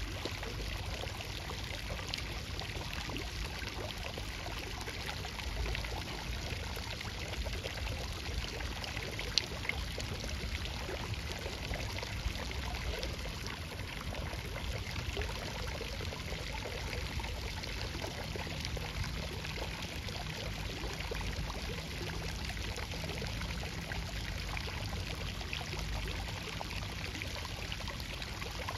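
Steady rush of flowing water, with a couple of faint clicks about nine and twelve seconds in.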